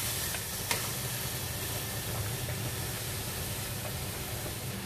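Pork ribs sizzling in a pan as they sauté with garlic and onion, stirred with a wooden spatula; one sharp tap of the spatula less than a second in.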